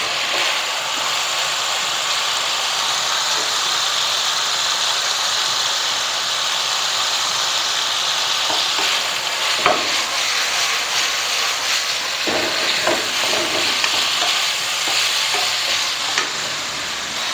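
Chicken and vegetables sizzling steadily in hot oil in a non-stick wok, turned with a wooden spatula that knocks and scrapes against the pan a few times in the second half.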